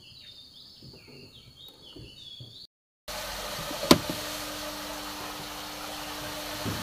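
Faint bird chirps over a steady high insect tone, then, after a brief break, a louder steady hiss with a low hum and a sharp click about a second after the hiss begins.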